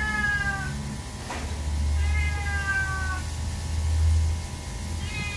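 A wet Maine Coon cat meowing while held up during its bath: three drawn-out meows, each falling in pitch, one ending just after the start, one about two seconds in, and one beginning near the end. A low rumble runs beneath them.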